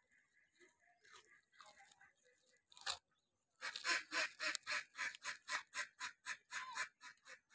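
Puppies crunching and chewing crisp wafer biscuits: a single sharp crack near three seconds in, then fast, steady crunching at about five bites a second.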